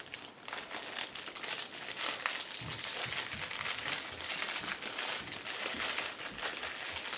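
Crinkly plastic toy packaging being handled and worked open in the hands, a continuous run of small crinkles and crackles.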